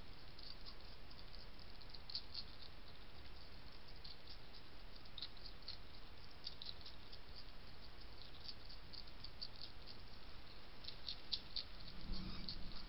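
European hedgehog chewing dry kitten biscuits from a dish, a steady run of small irregular crunching clicks, with a louder low bump near the end.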